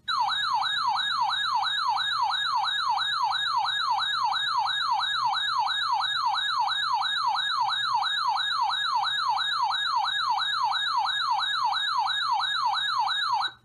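Electronic warbling alert siren, sweeping rapidly up and down in pitch about two and a half times a second, steady and loud, then cutting off abruptly just before the end. It is the alarm that signals an incoming weather warning.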